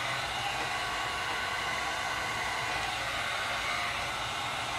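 Heat gun running steadily: an even blowing hiss over a low motor hum, warming the tint film so it softens and lies down onto the mirror's marker lens.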